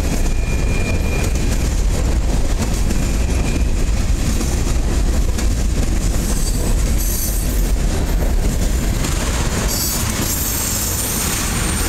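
Freight cars of a passing train rolling by close at hand: a steady, loud rumble of steel wheels on the rails, with high-pitched wheel squeal breaking in a few times.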